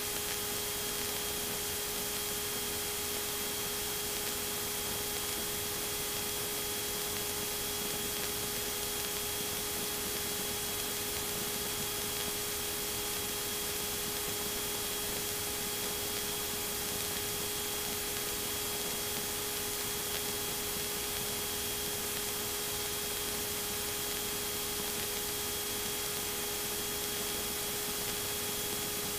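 Steady in-flight cabin noise of a Piper PA-28 light aircraft in cruise: an even hiss with a few steady hum tones underneath, unchanging in level and pitch.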